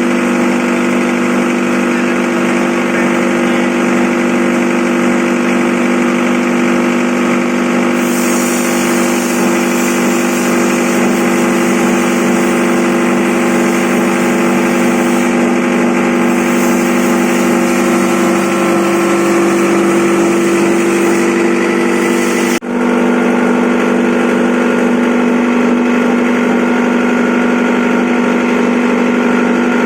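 Electric corn-cob grinding machine running steadily, a loud hum with fixed tones. A rushing hiss rides over it for a long stretch in the middle, then the sound breaks off for an instant about two-thirds through.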